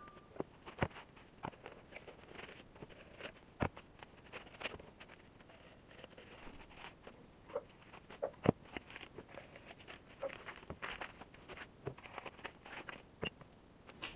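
Engine parts being unpacked by hand: scattered light knocks and clicks as cylinder liners are drawn out of a cardboard tube and set down on a wooden workbench, with faint rustling of their wrapping paper.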